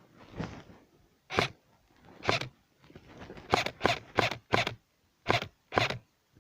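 Footsteps of a player walking over rough ground, about eight short scuffing steps at an uneven pace, with a quicker run of four in the middle.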